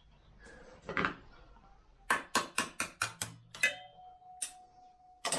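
Metal hand-tool clicks and clinks as the flywheel locking tool is taken off the engine: a quick run of about seven sharp clicks in the middle, then a few single knocks.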